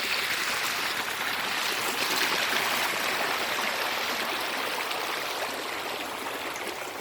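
Water of a forest waterfall stream rushing and splashing over rocks, a steady rush that swells slightly in the middle and eases a little near the end.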